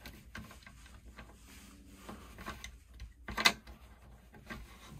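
Small clicks and rattles from the round finger-pull latch of a wooden cupboard door being worked, with one sharp click about three and a half seconds in; the catch doesn't want to come undone.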